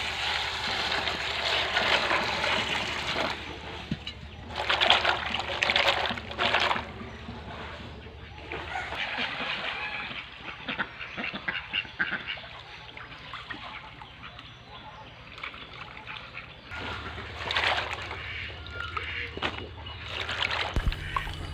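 Water poured and splashing over chopped taro stolons in a metal bowl as they are washed, in several loud bursts, with ducks quacking in between.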